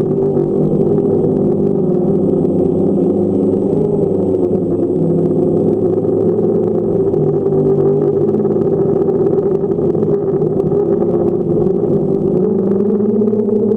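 Multirotor drone's motors and propellers humming steadily as it flies, in several steady tones whose pitch wavers slightly and shifts near the end.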